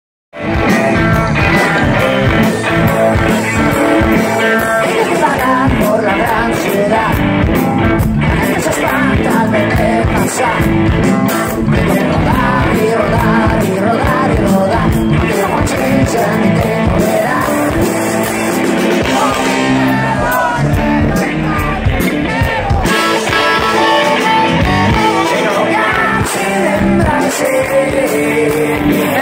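Live rock band playing loud: a lead vocal over electric guitar, bass guitar, drums and violin, recorded from the crowd.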